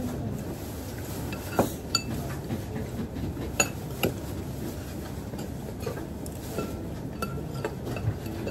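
Metal spoon and chopsticks clinking and scraping against a ceramic rice bowl as rice is stirred and scooped, with a few sharper clinks in the first half.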